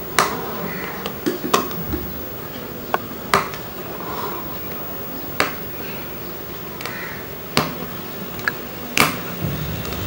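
Aari embroidery needle piercing silk cotton fabric stretched taut on an embroidery frame: irregular sharp taps about every second or so, with soft rustles of the zari thread being drawn through between them.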